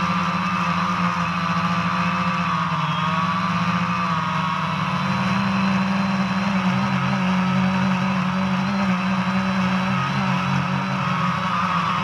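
DJI Phantom 2 quadcopter's electric motors and propellers in flight, a steady whirring hum that wavers slightly in pitch, picked up close by a GoPro strapped to the drone's body.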